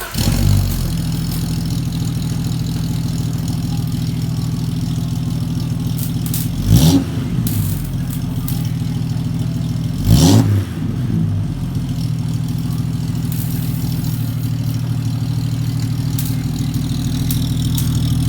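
Jeep Grand Cherokee's exhaust through a new Cherry Bomb muffler: the engine idles steadily and is revved twice, a few seconds apart, in the middle, its pitch rising and falling back each time.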